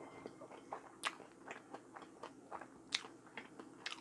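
A person chewing a mouthful of fried chicken with the mouth closed: soft, irregular wet chewing with a few sharper crunches, about a second in, near three seconds and near the end.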